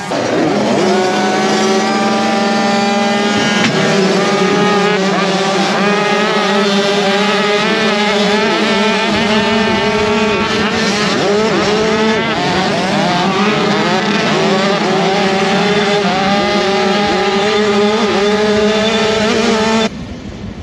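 A full field of small two-stroke youth motocross bikes revving hard off the starting gate and racing away together, many engines rising and falling in pitch at once. The sound drops away sharply near the end.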